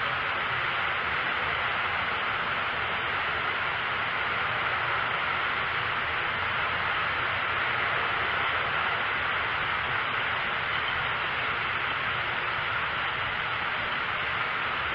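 Steady, even hiss with no thunder or other distinct events.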